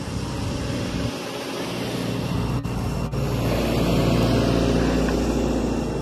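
A motor vehicle's engine running with a steady low rumble, growing louder for a couple of seconds around the middle as if a vehicle is passing.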